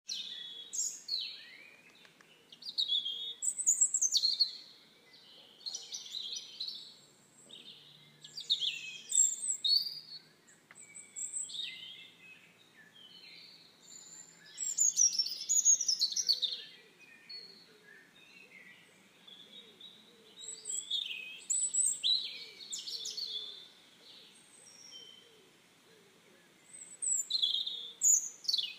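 Songbirds singing: a string of short, high-pitched warbling and chirping phrases, one after another with brief gaps, over a faint outdoor hiss.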